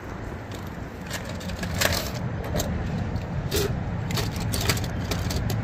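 Small die-cast toy cars and plastic toy parts clicking and clattering against each other as a hand rummages through a pile of them: a scattering of separate clicks, over a steady low rumble.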